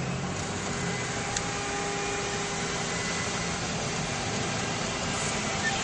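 Steady road and engine noise heard from inside a car moving slowly in traffic, with a faint steady hum running under it.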